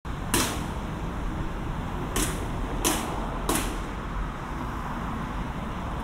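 Urban street ambience with a steady low rumble, the kind of background that distant traffic makes. Four short, sharp taps or scuffs stand out, the first right at the start and three more close together between about two and four seconds in.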